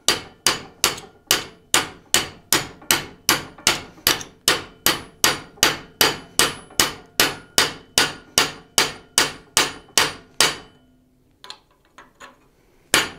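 Hammer blows on the end of a 1/4 inch steel hinge pin held in a bench vise, upsetting the pin end to lock the butterfly hinge together. The strikes come steadily, about two and a half a second, each with a short metallic ring. They stop about ten and a half seconds in, and a few faint taps follow.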